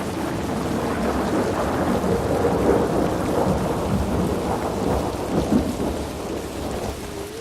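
Rain falling with thunder rumbling through it, the rumble swelling in the middle and easing near the end.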